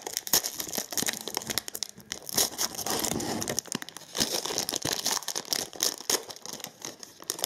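Foil trading-card pack being torn open by hand, its metallic wrapper crinkling and crackling as it is peeled back and crumpled, in a fast, irregular run of crackles and rustles.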